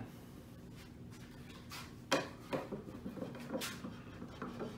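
Wooden tenon being worked in and out of a mortise during a test fit: a handful of sharp wooden knocks and creaks, the loudest about two seconds in.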